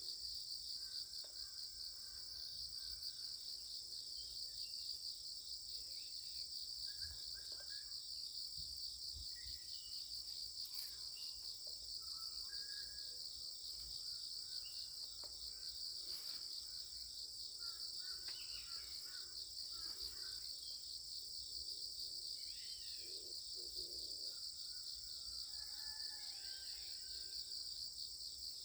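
Steady, high-pitched chorus of insects trilling without a break, with faint scattered short chirps in the background.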